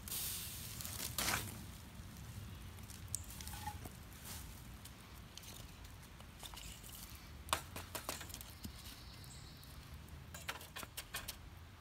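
Small wood fire burning in a tin-can hobo stove, with scattered light clicks and knocks from sticks and stove parts being handled, a cluster of them near the end.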